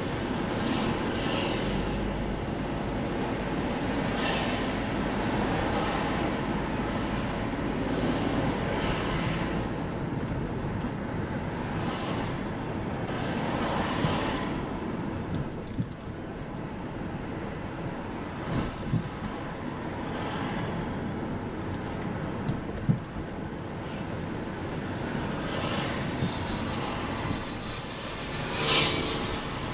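Road traffic: a steady rumble of vehicles, with several passing cars swelling and fading one after another. A few short knocks sound in the second half.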